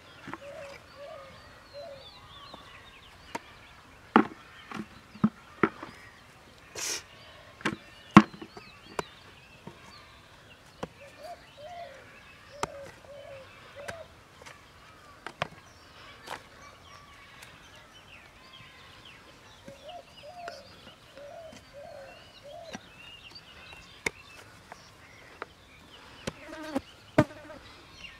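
An iron digging blade striking and prising apart hard, sun-cracked mud clods, a dozen or so sharp knocks at irregular intervals, the loudest cluster about four to nine seconds in. Insects and birds call faintly in the background, including a repeated low cooing.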